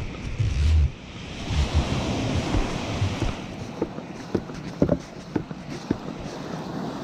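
Atlantic surf breaking and washing up the beach, with wind buffeting the microphone in low gusts, loudest in the first second. A few sharp clicks come in the second half.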